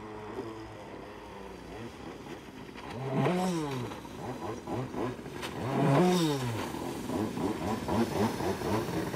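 Jetsurf motorized surfboard engine buzzing as the board runs across the water, swelling loudly twice, about three seconds in and again about six seconds in, its pitch dropping each time.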